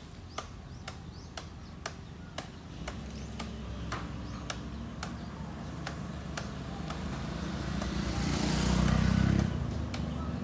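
Small motor scooter engine drawing closer, passing close by about eight to nine seconds in, then falling away. Under it an excavator's diesel engine runs low and steady, and a sharp tick repeats about twice a second.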